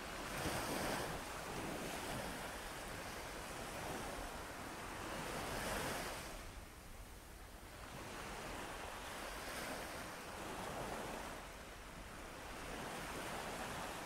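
Ocean surf: waves breaking and washing in, the rush swelling and fading about every five seconds.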